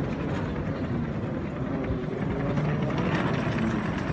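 Steady low rumble of airport terminal background noise, with faint indistinct voices in it.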